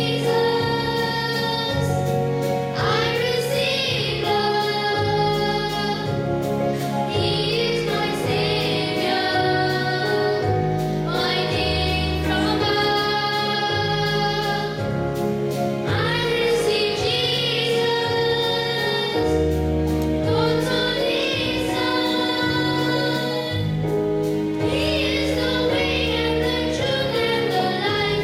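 Children's church choir singing a Christmas carol, with a few boys singing lead into handheld microphones, over an instrumental accompaniment with a steady bass line.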